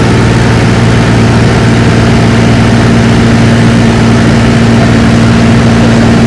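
Loud, steady engine drone with a constant low hum that holds unchanged throughout.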